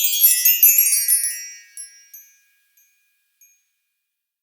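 A shimmering run of chimes, many high bell-like tones ringing over one another, fading out about two seconds in.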